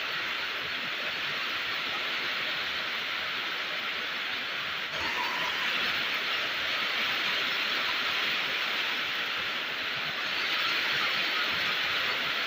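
Steady rain falling, an even hiss without distinct drops, swelling slightly about five seconds in and again near the end.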